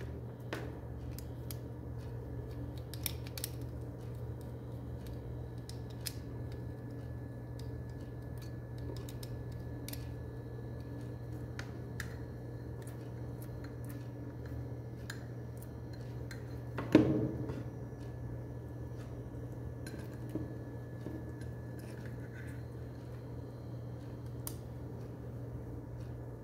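Small scattered clicks and snips of pliers and electrical flex cord being worked by hand on a wooden bench, with one louder knock about 17 seconds in, over a steady low hum.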